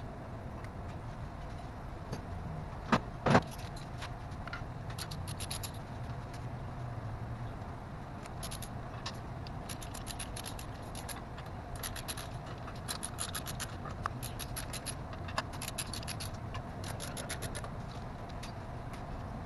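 Handling noises from hands working among parts in a car engine bay: two sharp knocks about three seconds in, then repeated short bursts of light, rapid clicking and rattling over a steady low hum.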